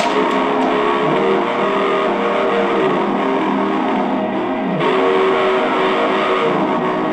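Guitar music playing from a tape on a vintage Realistic portable cassette player and radio through its built-in speakers, thin, with little bass.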